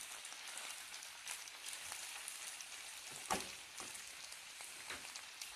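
Chopped iceberg lettuce sizzling in olive oil in a frying pan over low heat as it wilts and gives off its water: a steady hiss with scattered crackles and a few louder pops, the sharpest about three seconds in.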